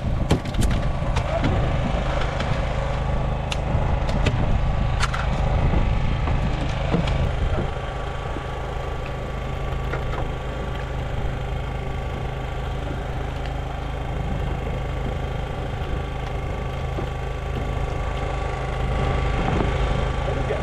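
An engine running steadily at low revs, a constant low hum with a faint steady whine over it. A few sharp knocks and clicks come in the first several seconds.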